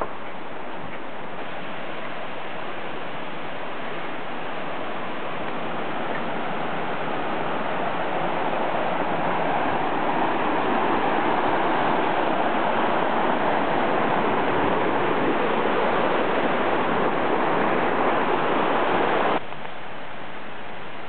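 Rushing water of a rocky jungle stream flowing over stones, a steady rush that grows louder as it comes closer and then cuts off suddenly near the end, leaving a fainter rush.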